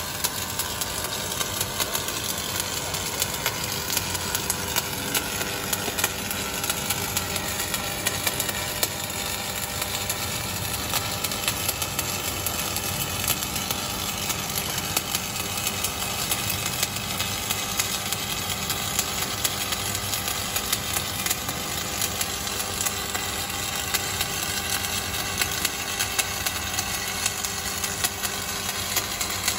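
Stick (shielded metal arc) welding on steel plate: the arc crackles and sizzles steadily, with frequent sharp pops, and runs without a break.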